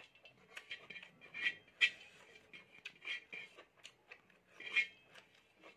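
Fingers mixing food on a steel plate: a string of short scrapes and clicks, loudest about two seconds in and again near five seconds.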